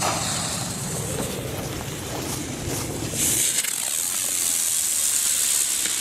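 Pyroart Libelle flying firework hissing as its charge ignites and burns, the hiss starting abruptly and turning sharper and higher about three seconds in as it flies off trailing sparks.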